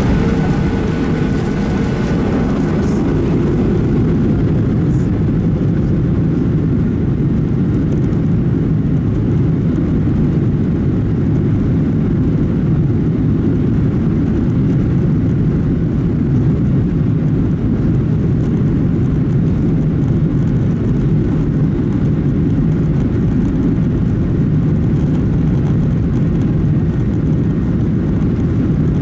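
Cabin noise of a Boeing 737-800 moving slowly on the runway: a steady low rumble from its CFM56-7B engines at low thrust, with no spool-up.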